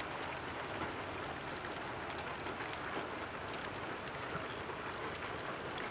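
Steady rain falling: an even hiss with scattered ticks of single drops.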